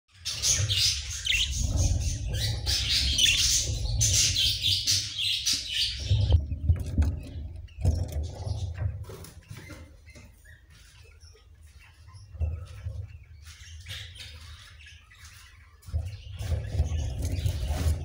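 Budgerigars chirping and chattering in quick high calls for about the first six seconds, then only faintly, over a low rumbling noise that comes and goes and returns near the end.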